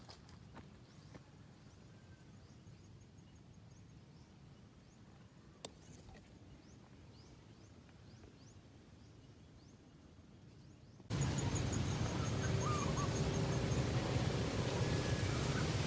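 Quiet outdoor ambience with faint high bird chirps and a repeated high trill, and a single sharp click about halfway. About two-thirds of the way in, a loud steady rushing noise, like wind on the microphone, cuts in suddenly.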